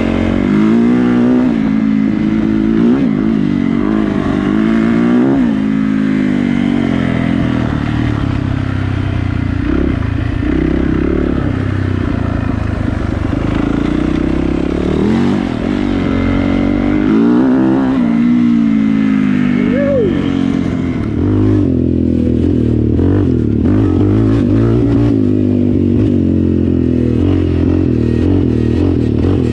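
Yamaha dirt bike engine revving up and down as it is ridden, its pitch rising and falling with the throttle and gear changes. Past the two-thirds mark it gives way to a lower, steadier engine note of an ATV being ridden, with scattered knocks and rattles.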